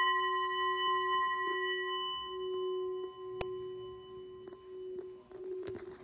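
Brass singing bowl ringing after a strike: a steady low hum with several higher overtones, wavering slowly as it fades. A sharp click comes about three and a half seconds in, and there is brief scraping near the end.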